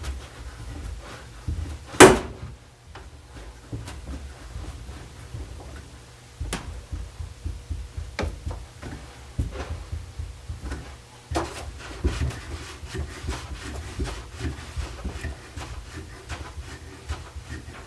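Scattered wooden knocks and clicks from a chair frame being handled and clamped during gluing, with one loud knock about two seconds in.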